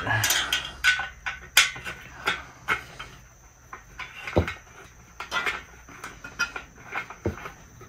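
Irregular small metal clicks and scrapes of an Allen key working a bolt into a steel bed-frame leg, with light knocks from handling the metal parts and two duller thumps.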